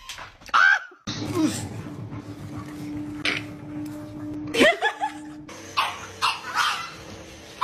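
Dogs vocalizing in a run of short clips. The sound cuts off abruptly about a second in and changes again after about five seconds, with a steady low hum under the middle stretch.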